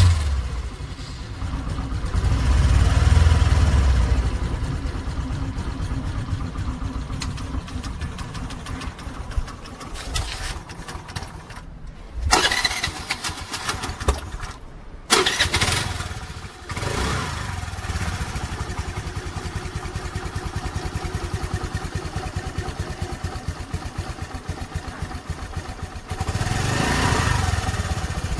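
Motor scooter engine starting and running, stopping about twelve seconds in and being restarted twice in quick succession, then settling into a steady idle that grows louder near the end.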